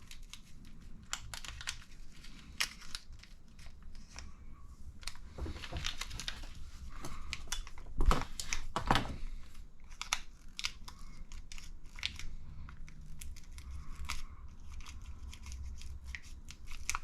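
Plastic parts bags crinkling as they are cut and torn open, with many small sharp snips and clicks and a few longer rustles. The blades are struggling to cut through the plastic.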